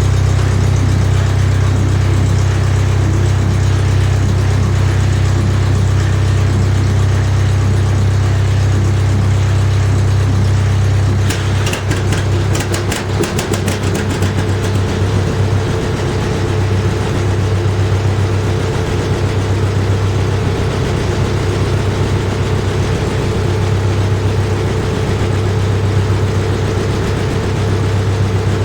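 Vintage farm tractor engine running after a cold start, a steady low note. About twelve seconds in the sound changes with a quick run of sharp pops for a few seconds, after which the engine note swells and fades in a slow, even rhythm.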